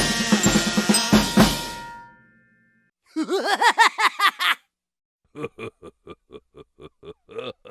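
Cartoon sound effects in sequence. First a short drum-kit sting with snare and cymbal hits that ends on held tones and fades out. After a pause comes a quick run of rising-and-falling warbles lasting about a second and a half, then, after another pause, a train of short pitched pulses, about three a second.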